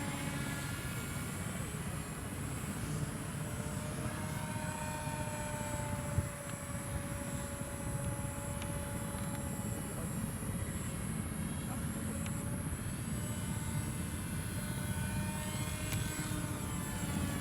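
Volantex Ranger 757-4 RC airplane in flight: its brushless outrunner motor and 8040 propeller give a whine whose pitch slowly rises and falls as it flies about. A single sharp click about six seconds in.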